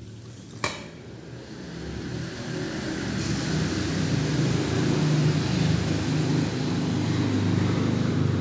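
A motor vehicle's engine running, growing louder over the first few seconds and then holding steady; a sharp click about a second in.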